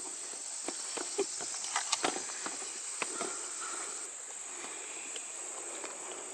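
Scattered crackling footsteps on leaves and twigs, most of them in the first half, over a steady high-pitched insect drone.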